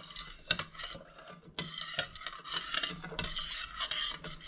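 Metal spoon stirring sugar into elderberry juice in a stainless steel pot, scraping the bottom in uneven strokes with a few light clinks against the pot, as the sugar is dissolved over the heat.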